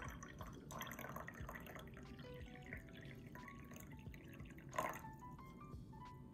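A drink poured in a thin stream into a glass mug, splashing and filling for about four seconds, with a sharp click near the end.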